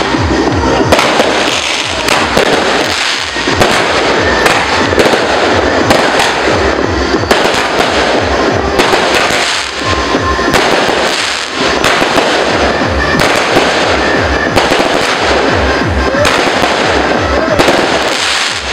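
Fireworks and firecrackers going off in a dense, continuous crackle of pops and bangs, loud throughout, with music playing underneath.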